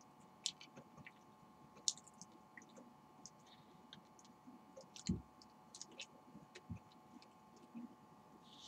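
A person chewing a mouthful of soft banana close to the microphone: faint wet mouth clicks and smacks at irregular intervals, with two low thumps, the stronger one about five seconds in.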